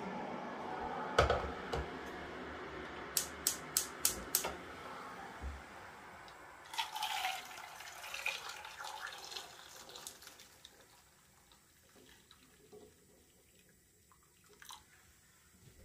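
Boiling water poured from a kettle into a saucepan of eggs, splashing loudest at first and then thinning to a trickle. A quick run of sharp clicks comes a few seconds before the pour.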